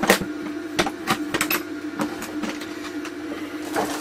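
Scattered clicks, taps and clatter of hand tools being handled while a pair of snips is fetched, over a steady low hum.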